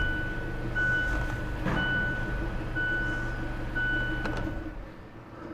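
Car's dashboard warning chime beeping about once a second over the low hum of the engine running. Both stop together about four and a half seconds in, with a click.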